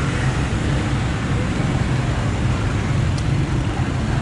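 Steady street-traffic noise from a stream of passing motorbikes, with a low engine hum underneath.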